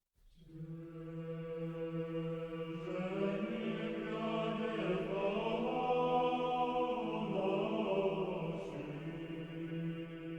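Orthodox church chant sung by a choir over a sustained low drone note, with more voices entering about three seconds in.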